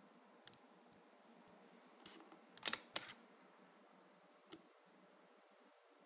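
Canon EOS 300D digital SLR releasing its shutter once, about three seconds in: two sharp clacks about a third of a second apart as the mirror and shutter fire. There are a few faint small clicks before and after.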